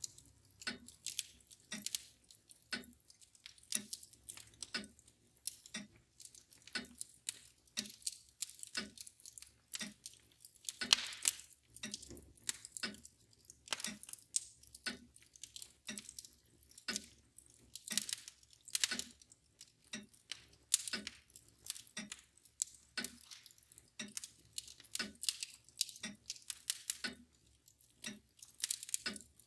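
Wood fire crackling with irregular sharp pops, some louder than others, over the steady ticking of a mantel clock.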